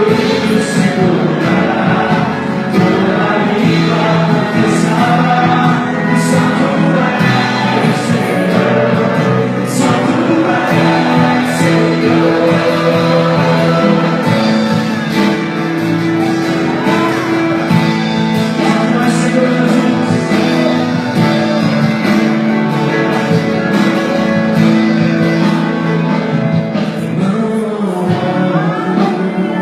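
Live worship music: a band with guitar playing under group singing, a Portuguese-language praise song.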